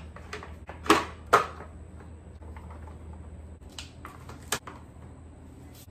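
Tin cans and plastic bottles being set down on a plastic shelf: a handful of sharp knocks and clinks, the two loudest close together about a second in and a few more later, over a steady low hum.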